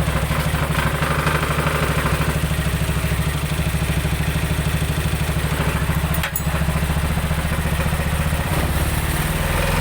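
Jialing 200cc engine of a Kaisar three-wheeled motorcycle idling steadily. There is one brief hitch about six seconds in.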